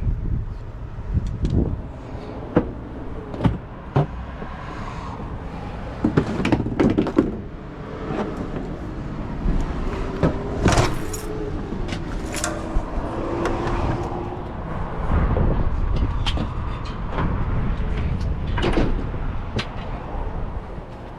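Handling noise from work on a refrigerated reach-in display case: scattered knocks, clicks and sliding or scraping of doors and panels, with a brief squeak partway through, over a steady low hum.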